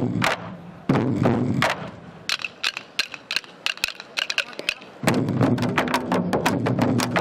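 An ensemble of Korean barrel drums (buk) struck in unison: two heavy strokes in the first second or so, then a quieter passage of rapid, sharp wooden clicks of the drumsticks from about two to five seconds in, before full, fast drumming comes back in about five seconds in.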